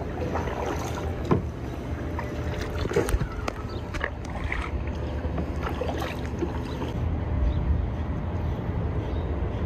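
Kayak paddles dipping and splashing in calm water, with dripping and a few short sharp knocks, over a steady low rumble.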